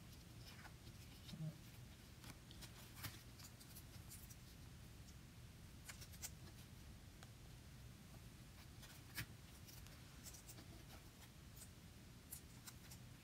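Near silence over a faint low room hum, with a few scattered faint clicks and rustles of construction-paper cut-outs being handled and pressed together.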